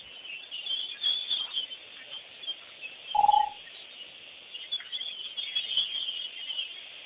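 Wild birds chirping and calling, with one short clear note, the loudest sound, about three seconds in.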